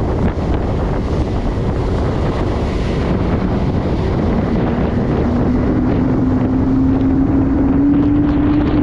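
Motorboat engine running under way, with heavy wind buffeting the microphone; from about halfway through the engine's note climbs slowly as it speeds up.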